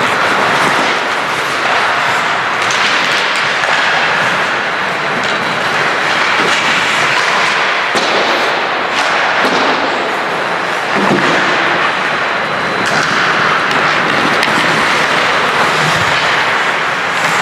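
Ice hockey play on the rink: a steady scraping hiss of skates on ice with scattered sharp clacks and knocks of sticks, puck and boards.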